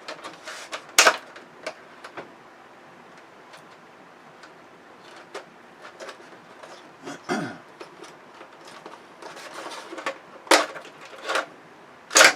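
Scattered clicks, knocks and light rustling of television parts and cables being handled and pulled during teardown, with a few sharper knocks and a short scrape.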